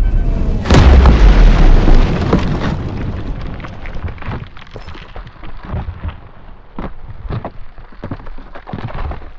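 Detonation of a 2 lb Tannerite binary exploding target: a sharp, very loud blast about a second in with a deep boom that lasts about a second. It then dies away over several seconds, broken by many scattered sharp cracks and thuds.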